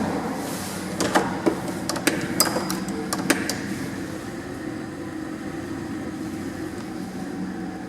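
A steady mechanical hum, with several sharp clicks and knocks between about one and three and a half seconds in.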